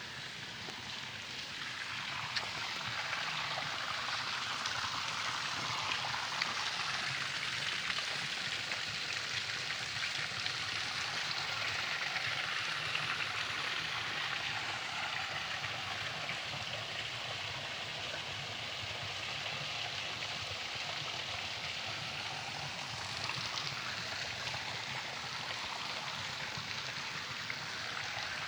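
Running water: a steady rushing that grows louder over the first few seconds and then holds.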